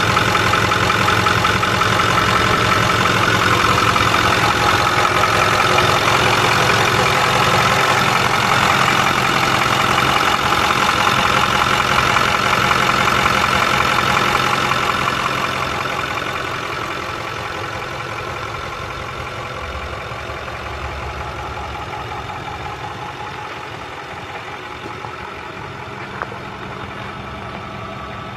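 Ford 6.4L Power Stroke V8 turbo diesel idling with a steady diesel clatter. A little after halfway it becomes quieter and duller.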